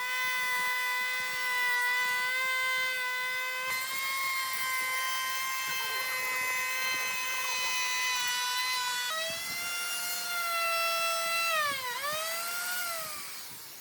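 High-speed electric power tool motor running with a steady high whine. The whine jumps abruptly twice, and near the end its pitch dips sharply and recovers, as when the tool is loaded against the wood.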